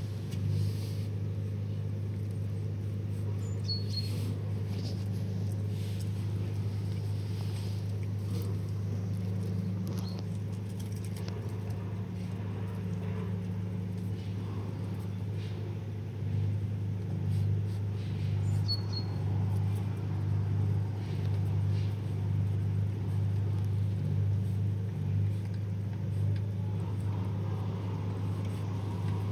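Steady low mechanical hum, its loudness pulsing slightly in the second half, with two faint brief high chirps.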